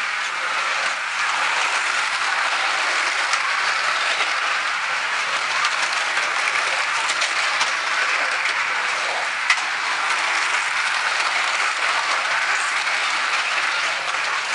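Several Scalextric Digital slot cars racing on a plastic track: a steady whirr of their small electric motors and wheels, with an odd sharp click, the clearest about two-thirds of the way through.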